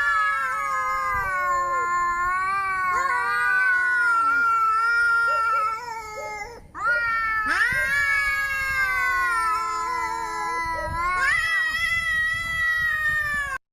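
Angry cat yowling: two long, drawn-out caterwauling cries that waver in pitch, with a short break just after the middle, cut off abruptly near the end.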